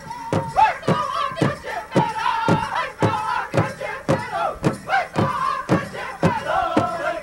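Powwow drum group singing together in high voices over a big drum struck in a steady beat, about two strokes a second.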